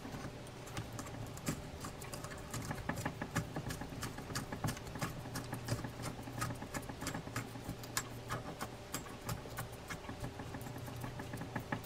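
Irregular small clicks and ticks, several a second, from a Daiwa Millionaire 4HM baitcasting reel as its handle shaft is tightened down, the handle held in place as a wrench.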